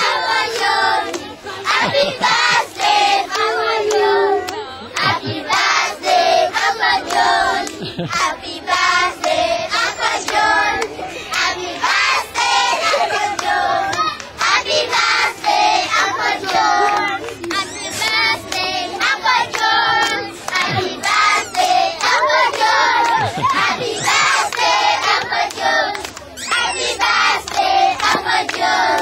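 A group of children singing together and clapping their hands along with the song.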